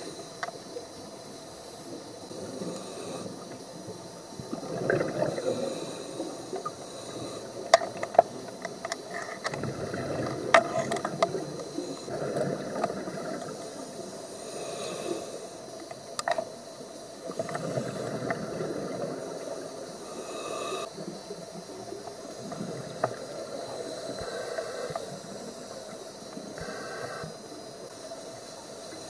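Underwater scuba breathing: a diver's regulator hisses and exhaled bubbles rush out in surges every five or six seconds, over a steady watery hiss, with a few sharp clicks in the middle.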